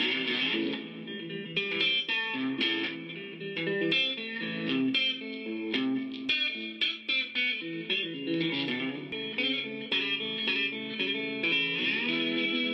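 Background music led by a guitar playing many quick plucked notes.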